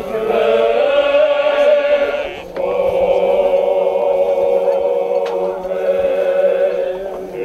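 Several voices singing a slow funeral chant in long, held notes, with a short break about two and a half seconds in and another near the end.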